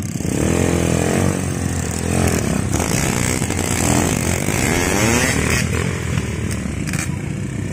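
Dirt bike engine revving again and again, its pitch rising and falling, over the rush of a shallow stream.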